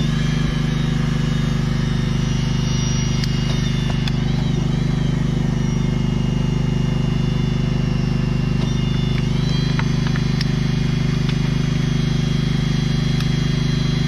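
Machinery running steadily with a constant low mechanical hum that does not change in pitch or level.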